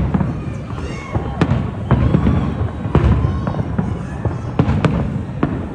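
Fireworks display: a dense run of overlapping bangs and crackles, several a second, over a continuous low rumble.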